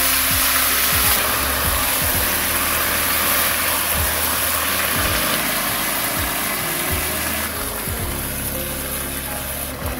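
Kimchi and pork sizzling as they stir-fry in a frying pan, with a steady low hum underneath; the sizzle eases a little toward the end.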